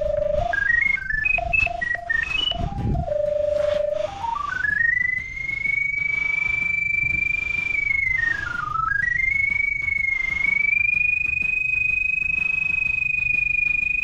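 Pipe-locator receiver tone while tracing the drain camera's head underground. One pure electronic tone jumps between pitches in short steps at first, then glides up and holds high, dipping once in the middle before settling high again. Its pitch rises as the signal strengthens.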